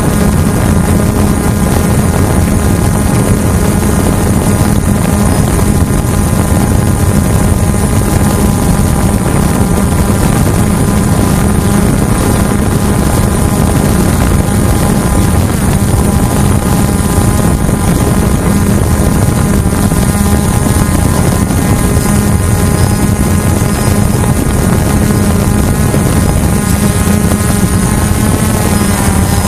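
Hubsan H109S quadcopter's motors and propellers whirring steadily in flight, close to the mic with a broad rush of air under a held multi-pitched whine. The pitch shifts a little near the end as the motor speed changes.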